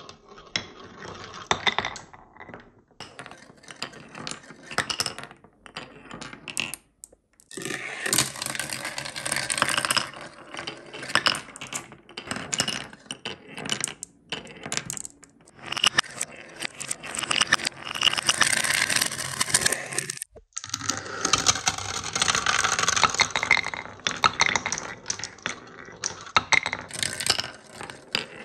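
Glass marbles rolling down a wooden and plastic marble run, with stretches of steady rolling and many clicks and clinks as they knock against the track and each other. The sound breaks off briefly twice.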